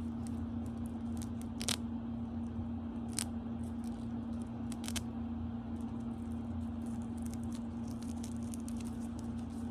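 A steady low electrical hum from equipment in a small room, with a few soft clicks and light rustling from small items such as Velcro strips and remotes being handled.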